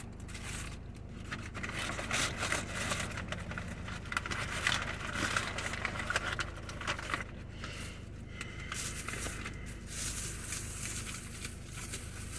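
Paper food wrappers and takeout bags rustling and crinkling as the food is handled, in irregular bursts that are busiest through the middle, over a steady low hum.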